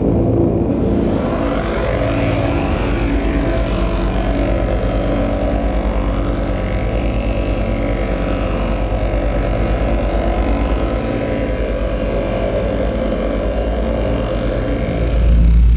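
Electronic drone soundscape: a steady low hum under layered sustained tones, with slow sweeping glides rising and falling in pitch. A deep rumble swells near the end.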